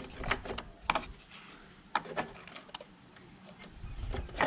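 Scattered clicks, knocks and scraping of hand tools against the mower's recoil starter, with a low rumble of handling building near the end.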